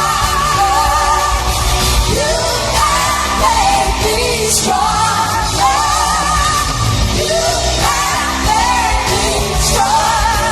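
A female pop singer's voice in a live performance, holding long notes with a wide vibrato over a full backing band.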